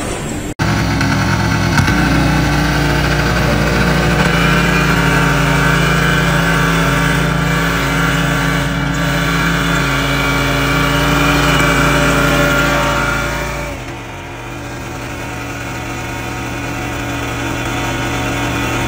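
Engine of a walk-behind rotary tiller running steadily as its tines churn dry soil. About fourteen seconds in the sound drops to a quieter, steady hum.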